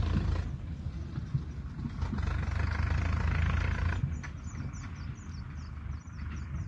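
Steady low rumble of wind on the microphone by a canal, with a small bird calling a quick run of high, falling chirps, about four a second, starting about four seconds in.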